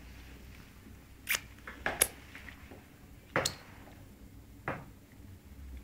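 Small bowl knocking against the plastic tray of a baby's high chair: a handful of sharp, separate knocks, the loudest about two seconds in.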